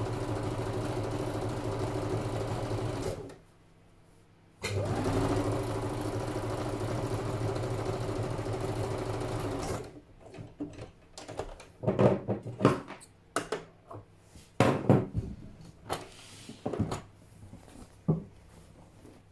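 Electric domestic sewing machine running steadily as it stitches fabric, stopping for about a second and a half, then running again for about five seconds. After it stops, the fabric is pulled out from under the machine and handled, with a string of irregular knocks and rustles.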